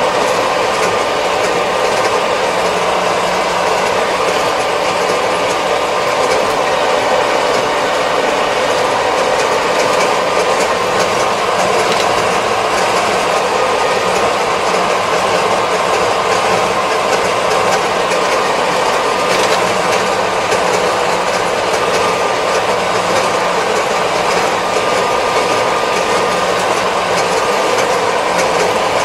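Kubota 75-horsepower tractor driving at road speed, heard from inside its cab: steady engine and drivetrain noise that holds the same level throughout.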